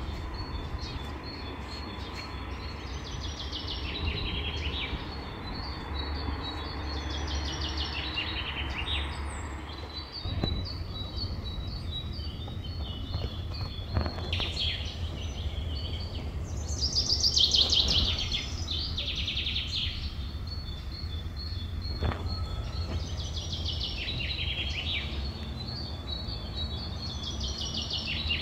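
Small birds chirping in the trees, in bursts of rapid high chirps every few seconds, over a steady low rumble.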